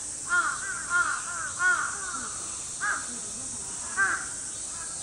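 Crows cawing: a quick run of caws in the first two seconds, then single caws about three and four seconds in.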